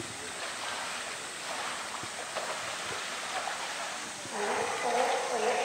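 Polar bear swimming in a zoo pool, the water splashing and sloshing steadily around it. About four seconds in, people's voices start up over the water.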